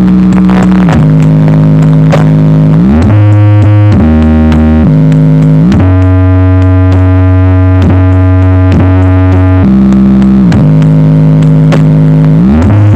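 Loud synthesizer bass test track played through a large sound system's new speaker boxes: long, deep held notes that slide up or down in pitch from one note to the next.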